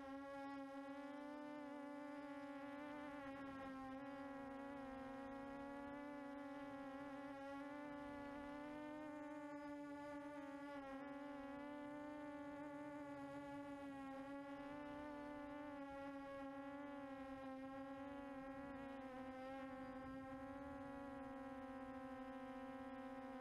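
QAV400 quadcopter's motors and propellers buzzing in flight, heard from its onboard camera: a steady hum with a strong low note and a stack of overtones, wavering slightly in pitch.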